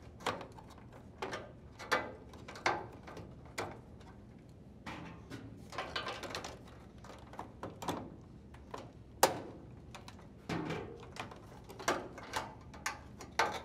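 Wire-harness connectors being unplugged behind a GE dryer's front panel: irregular plastic clicks, taps and rustling of hands against the plastic bracket and sheet-metal panel, with one sharper click about nine seconds in.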